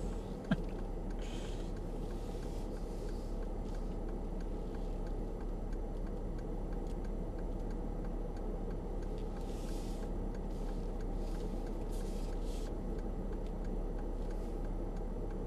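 Steady low cabin noise inside a slow-moving Mercedes 4x4, with a constant hum and a faint, even ticking throughout. A single sharp click comes about half a second in.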